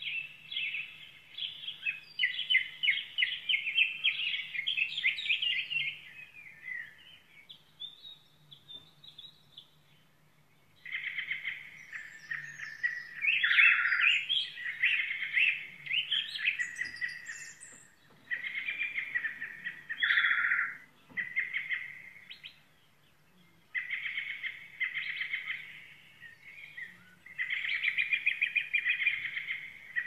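A songbird singing repeated phrases of fast, chattering notes, each a few seconds long, with short pauses between them. There is a longer lull about a third of the way in.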